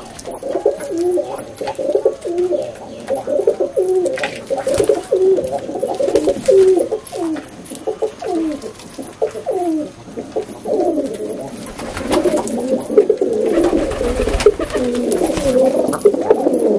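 Several domestic pigeons cooing over one another, a steady overlapping chorus of low, falling coos that grows busier in the second half, with a few short knocks among them. This is male pigeons cooing in excitement.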